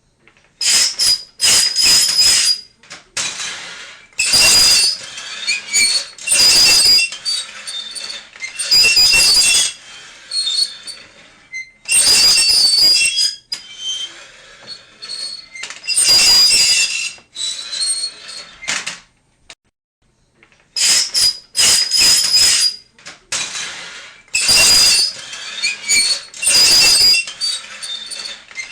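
Harsh, high-pitched squeals repeated in irregular bursts, each lasting about half a second to a second and a half, with short quieter gaps between them.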